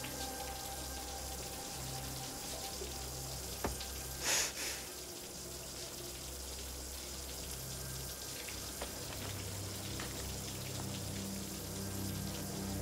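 Water running steadily from a tap or shower as a continuous hiss, with a brief louder rush of noise about four seconds in.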